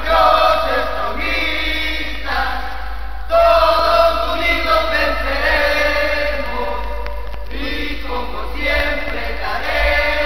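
Football supporters' chant sung loudly by a chorus of voices in unison, in long repeating phrases.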